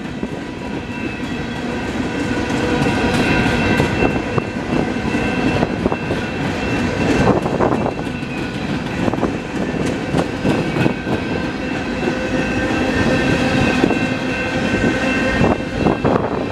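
Freight train cars (boxcars and center beam flat cars) rolling past on steel wheels: a steady heavy rumble with clacks now and then from the wheels on the rails, and a thin, steady, high-pitched squeal.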